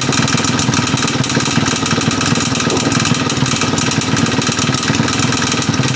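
Husqvarna 580 BTS backpack blower's two-stroke engine running steadily at low revs with a characteristic knock, which the mechanic judges by its sound to be most likely a worn piston pin or failing crankshaft needle bearings.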